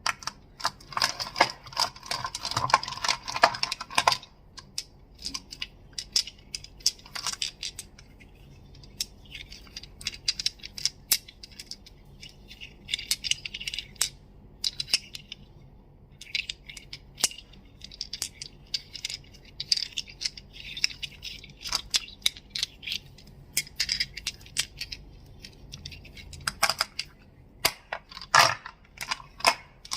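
Crystals clicking and clacking together in quick runs of sharp taps, with short pauses between the runs and a few single loud clicks near the end.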